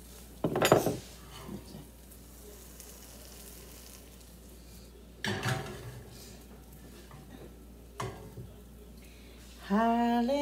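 Quesadilla frying in butter in a pan, a faint steady sizzle, with a few clatters of a spatula and pan: one loud hit about half a second in, smaller ones around five and eight seconds in.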